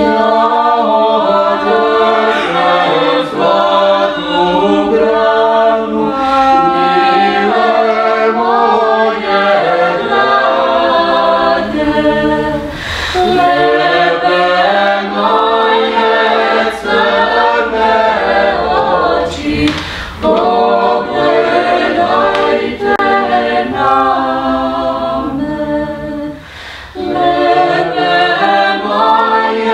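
Small mixed a cappella vocal ensemble, women's and men's voices, singing in harmony without accompaniment. There is a brief break between phrases near the end.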